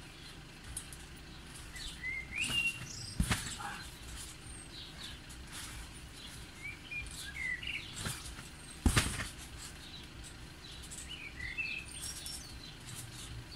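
Small birds chirping and singing in short, quick calls throughout, with two sharp thuds, about three seconds and nine seconds in, standing out as the loudest sounds.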